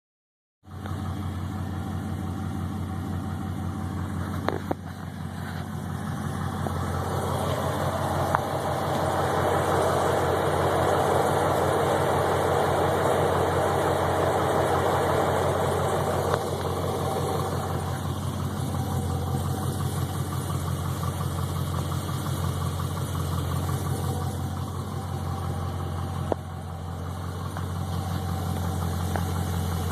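Chevrolet TrailBlazer SS's 6.0-litre LS2 V8 idling with a steady rapid knock, which the owner takes for piston slap. It grows louder through the middle stretch, then eases back.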